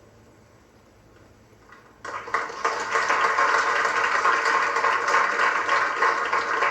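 Theatre audience applauding, breaking out suddenly about two seconds in and continuing as steady, dense clapping at the end of the song.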